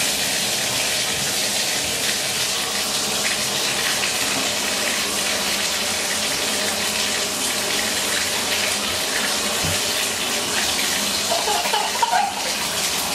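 Water running steadily from a bathtub spout into a tub as the bath fills, turned on at the wall valve just as it starts.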